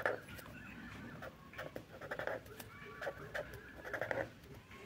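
Faint pen strokes on paper as bonds and letters are drawn, with faint animal calls in the background.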